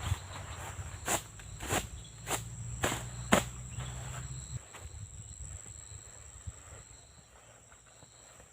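Steady high-pitched drone of forest insects, with a run of sharp knocks and rustles through the first half as camping gear is handled and packed, fading out by about the middle.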